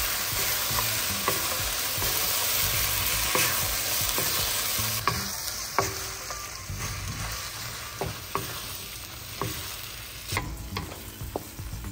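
Chicken and vegetables in sweet and sour sauce sizzling in a wok while a wooden spatula stirs and tosses them, with scattered scrapes and knocks of the spatula against the pan. The sizzle thins out in the second half.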